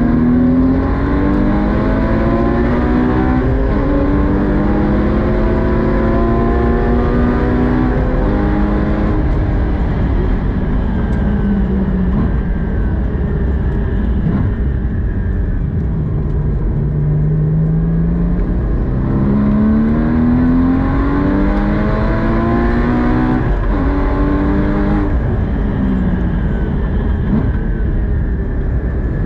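Porsche 981 Cayman GT4's naturally aspirated 3.8-litre flat-six heard from inside the cabin at speed, climbing in pitch through the gears with a drop at each upshift, falling away twice as the car slows and downshifts, then pulling up through the revs again. A steady low road and tyre rumble runs underneath.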